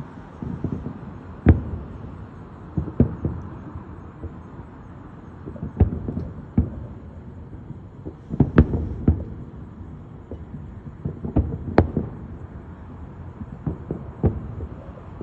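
Aerial firework shells bursting: a series of booms at irregular intervals, some in quick pairs or clusters, over a steady background hum.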